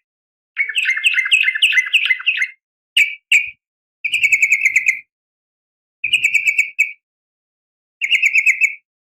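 Female yellow-vented bulbul calling to males: bursts of rapid, bubbly chattering notes, one long phrase then several shorter ones, with brief silent pauses between them.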